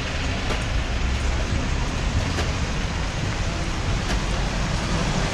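Steady city street noise: traffic rumble with a constant hiss, and a few faint ticks.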